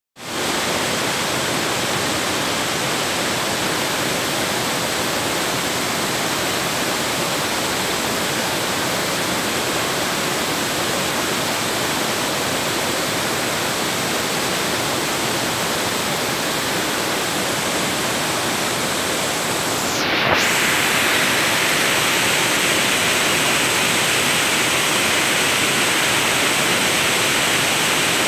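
Waterfall rushing, a steady even roar. About two-thirds of the way through a short knock is heard, and after it the rush is a little louder and brighter.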